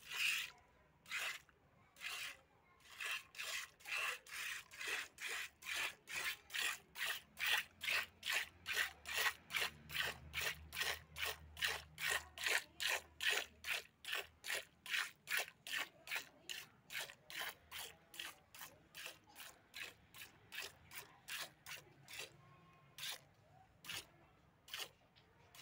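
Hand milking of a cow: jets of milk squirting into a steel pail that already holds milk, each squeeze a short hiss, in a steady rhythm of about two squirts a second. Near the end the squirts come further apart.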